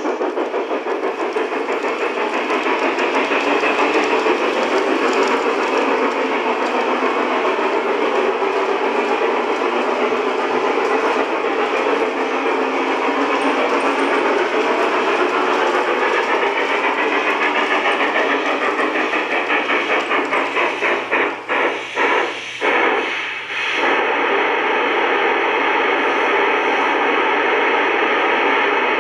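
LGB G-scale model steam train running on its track: a steady, fast, rhythmic chuffing and rolling noise. A little over two-thirds of the way through the rhythm slows and breaks up in a few short gaps, then the sound runs steady again.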